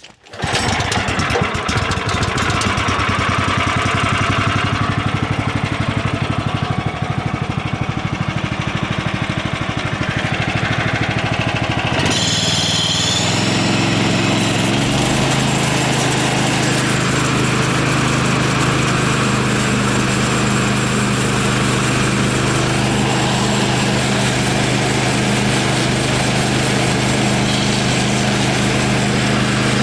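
Woodland Mills portable band sawmill's engine starting up abruptly and running loudly. About twelve seconds in its note changes and settles into a steady hum.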